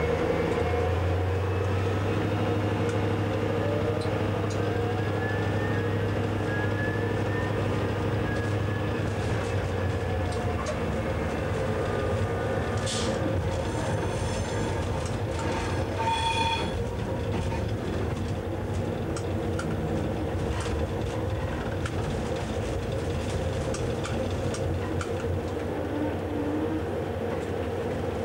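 DSB MK diesel shunting locomotive heard from its cab, its engine running steadily under power as it moves slowly along the siding, the pitch rising gradually over the first several seconds. Brief sharp noises and a short high squeal come about halfway through.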